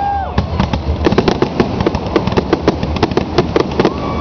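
Fireworks display: a rapid barrage of bangs and crackles, several per second, growing denser after about a second. A held whistle fades out at the start and another begins near the end.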